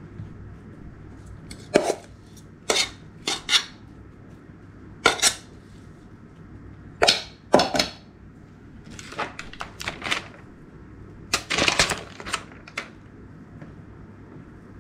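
Kitchen dishes and utensils clattering: a string of sharp clinks and knocks at irregular intervals, some in quick clusters, over a faint steady hum.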